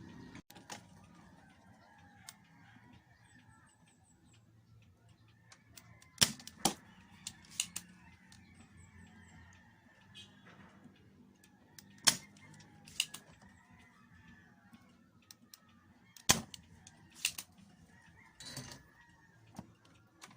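Chickens clucking faintly in the background, with several sharp clicks scattered through; the loudest come about six, twelve and sixteen seconds in.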